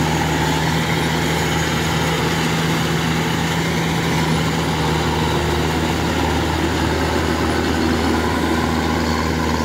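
Kubota DC-105X combine harvester's diesel engine running steadily under load as the machine cuts rice, a deep even hum with the rattle of its working machinery.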